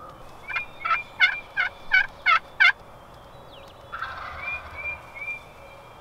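Turkey yelping: a run of seven yelps at about three a second, getting louder as it goes. Fainter calls follow near the end.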